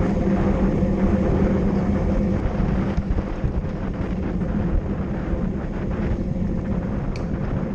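Bicycle rolling at speed on asphalt, heard from a camera mounted on its rear rack: a steady rush of wind and tyre noise with a low, steady hum.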